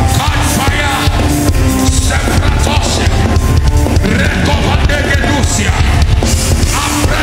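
Loud live church band music with heavy bass and a steady beat, with voices of the congregation over it.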